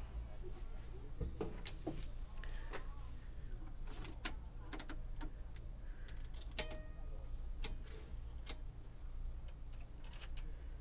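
Scattered clicks and knocks of knobs, dials and switches on an old aircraft's radio control panel being turned and pressed by hand, about a dozen irregular clicks, one a little past halfway followed by a short ringing tone.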